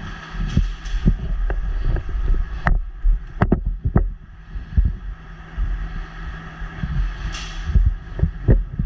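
Wind buffeting the microphone: uneven low rumbling thumps with a faint hiss, and a few sharp clicks about three to four seconds in.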